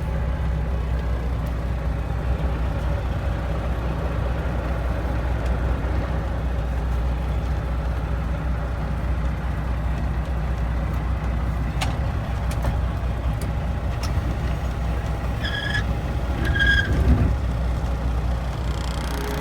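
Semi truck's diesel engine running steadily, with a few sharp clicks and two short high beeps near the end.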